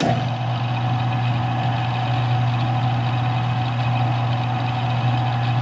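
Smithy CB-1220XL combination lathe-mill switched on, its motor and spindle running at a steady speed with a strong low hum and a steady higher whine. The chuck spins free with no cut being taken.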